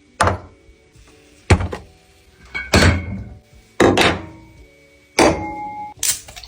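Six heavy thunks about a second apart, each dying away quickly, over faint background music.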